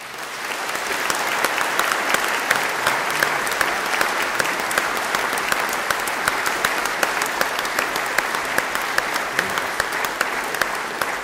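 Audience applauding: dense clapping that swells up within the first second and then holds steady.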